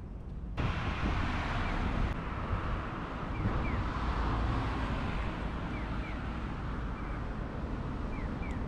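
Steady road traffic noise from cars on a wide road, with wind buffeting the microphone; it begins abruptly about half a second in. Faint short rising chirps come in pairs every couple of seconds.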